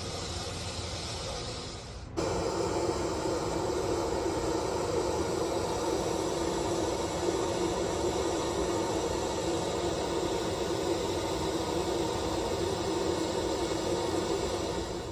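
Steady rushing noise of water, as from heavy rain and running floodwater. A cut about two seconds in brings in a louder, brighter rush.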